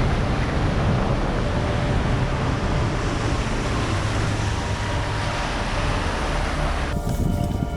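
Bass boat running across the water, with a steady rush of wind on the microphone.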